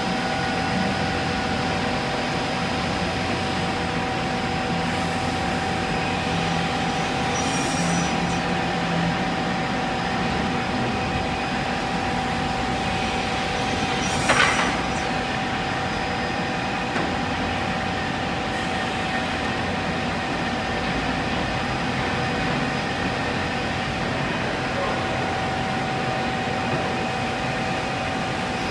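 HOLZTEK TECTRA 328 CNC panel saw running, a steady machine hum with a constant whine. A short, sharp burst of noise cuts in about halfway through.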